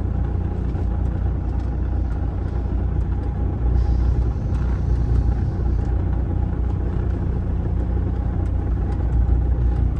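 Kenworth semi-truck's diesel engine running with a steady low rumble, heard from inside the cab as the truck rolls slowly.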